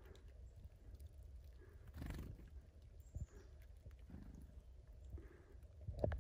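Faint, thin high calls from chickadees visiting the feeder over a steady low rumble, with a soft whoosh about two seconds in and a sharp thump near the end.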